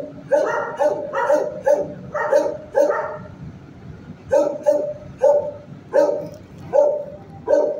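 A shelter dog barking repeatedly, about two barks a second, in two runs with a pause of about a second near the middle.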